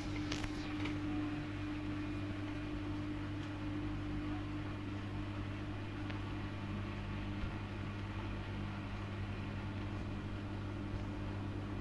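Samsung WW80R421HFX/LE front-loading washing machine running: a steady motor hum whose pitch shifts about halfway through, with a brief click near the start.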